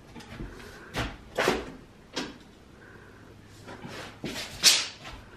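Steel tape measure being handled: several short rattles and clacks, the loudest a sharp zip near the end as the blade is let back into its case.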